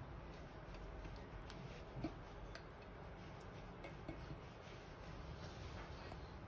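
Faint scraping and small ticks of a silicone spatula working thick cherry coulis out of a saucepan into a stainless-steel bowl, with one slightly louder tap about two seconds in.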